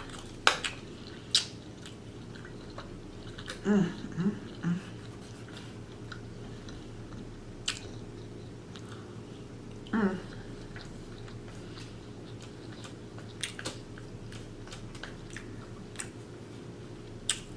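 A person chewing food close to the microphone, with sharp wet mouth clicks every few seconds and two short hummed "mm" sounds of enjoyment, about four and ten seconds in. A faint steady hum runs underneath.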